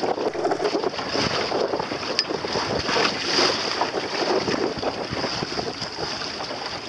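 Water splashing and rushing along the hull of a boat under way, with wind buffeting the microphone; a steady high hiss runs over it.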